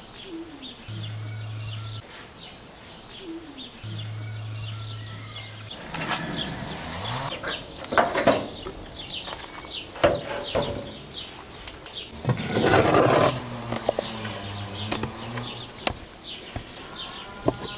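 Birds chirping throughout, with two low droning hums in the first six seconds. Then loud metallic knocks and scraping as the metal pizza pan is handled at a rusty barrel oven, the loudest a scraping burst about twelve to thirteen seconds in.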